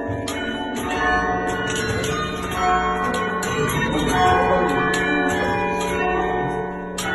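Church bells being played, struck about twice a second, each stroke overlapping the long ringing tones of the last so the peals blend together over a sustained low hum.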